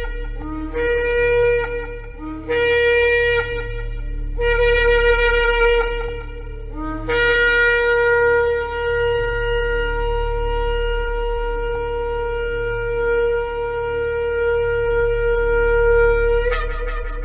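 Shofar blowing: four short blasts, each scooping up from a lower note into the main tone, then one long held blast of about nine seconds that breaks up to a higher note just before it ends. A steady low hum lies underneath.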